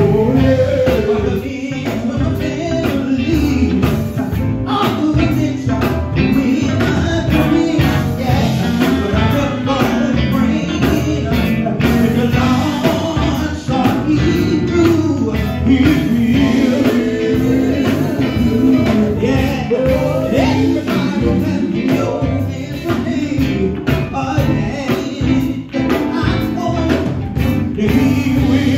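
Live gospel band playing: a male lead singer over electric guitars and a bass guitar, with a steady beat.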